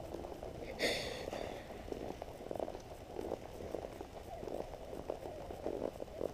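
A horse's hoofbeats on sand arena footing, muffled and irregular, heard from the saddle. A brief high-pitched squeak about a second in.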